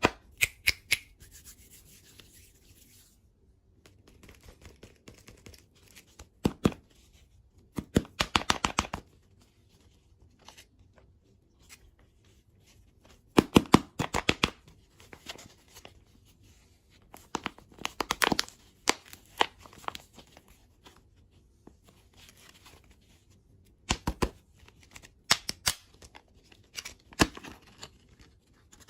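Close-miked eating sounds: short bursts of crisp crunching and crackling as candy and desserts are bitten and chewed, with quiet gaps between bursts.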